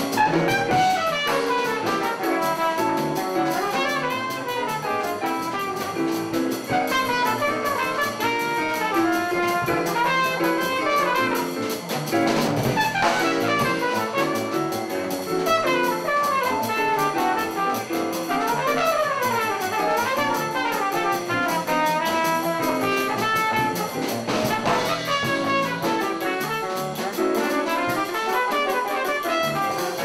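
Live small-combo jazz: a trumpet solos with quick runs up and down, over upright bass, keyboard and drum kit.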